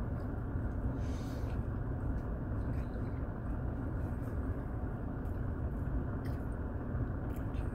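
Steady low rumble of a car cabin, the hum of the vehicle's engine or ventilation heard from inside, with a few faint clicks and mouth sounds of someone chewing a burger.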